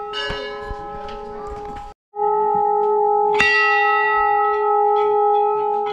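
Metal temple bells ringing with a long, sustained tone, struck again about three and a half seconds in; the ringing drops out briefly about two seconds in.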